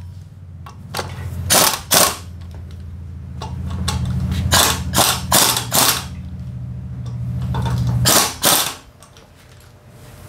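Pneumatic impact wrench firing in several short, loud bursts, mostly in pairs, as it runs in the bolts of a new front brake disc on a Honda PCX125 wheel hub. A steady low hum runs underneath, grows louder, and stops suddenly about eight seconds in.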